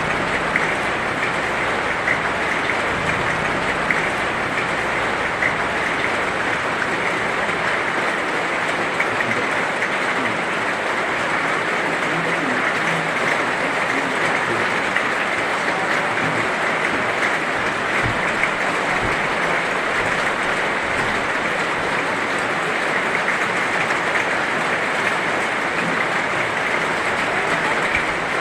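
Heavy rain falling steadily: a dense, even hiss with scattered ticks of drops striking.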